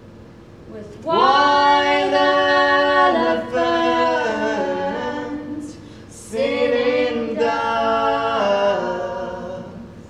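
Unaccompanied voices singing a cappella in slow, long-held chords. There are four phrases, the first beginning about a second in, with a short break and a brief hiss just before the third, and the singing fades out near the end.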